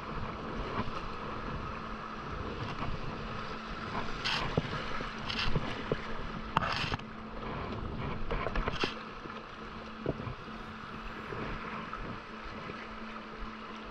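Double-bladed kayak paddle strokes splashing into the water, a few sharp splashes a second or so apart in the middle stretch, over the steady rush of river rapids.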